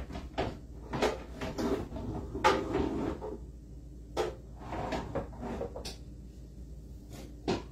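A string of knocks and clatters from things being handled at a kitchen counter, with bursts of rustling and scraping in between; the loudest clatter comes about two and a half seconds in.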